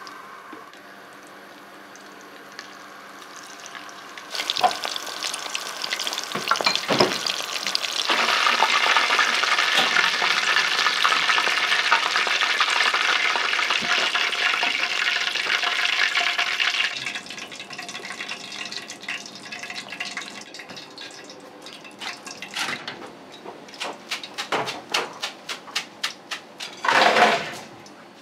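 Restaurant kitchen work: a loud, steady hiss starts about four seconds in and runs for roughly twelve seconds, then stops suddenly, followed by repeated clinks and clatter of dishes and utensils.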